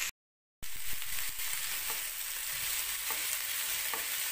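Sliced tindora (ivy gourd) and onions sizzling in hot oil in a non-stick frying pan while a spatula stirs them, with a few light clicks of the spatula against the pan. A brief gap of silence just after the start.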